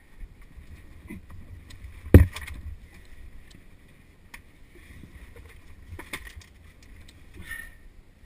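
A caver's climbing movements heard through a helmet-mounted camera: low rubbing and scraping of clothing and gear against rock, with one sharp knock about two seconds in and lighter knocks near the end.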